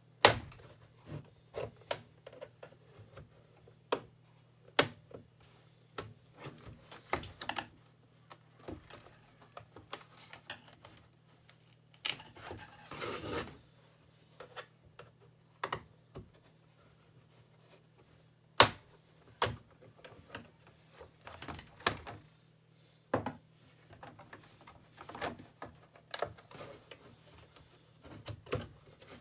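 Irregular plastic clicks, taps and knocks from handling a Logitech ERGO K860 split keyboard while its palm rest is worked loose, with a longer scraping rustle about halfway through.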